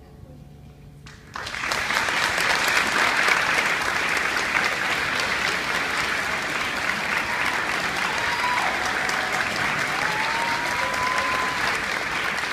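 The song's last note fades out, and about a second in an audience breaks into loud applause that goes on steadily. Near the end, a drawn-out high call rises and holds above the clapping.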